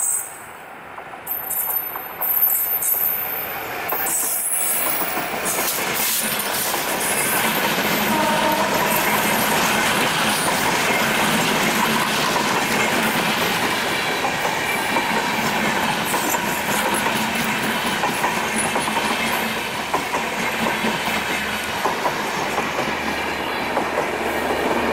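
Passenger train passing close by: an EMD GT42ACL diesel locomotive followed by a long rake of LHB coaches, the wheels clattering on the rails. The sound builds over the first few seconds and then holds steady as the coaches roll past.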